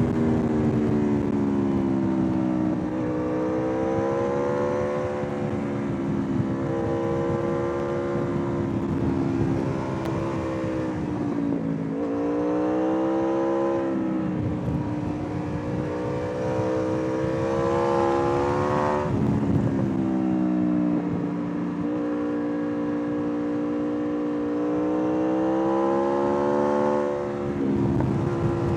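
2013 Aprilia RSV4 R APRC's V4 engine pulling through a run of bends, its pitch climbing and falling again and again as the throttle is worked. The note drops abruptly three times, about twelve seconds in, around nineteen seconds and near the end.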